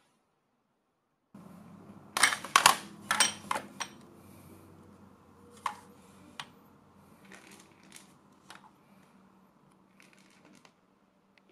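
Hard objects handled and set down on a tabletop: a quick cluster of loud clacks and knocks, then scattered lighter clicks, a few of them as a digital coffee scale's button is pressed near the end. A low steady hum runs underneath.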